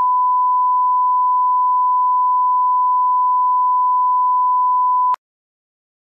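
Broadcast test tone: the steady, unwavering single-pitch beep that goes with TV colour bars. It cuts off abruptly about five seconds in.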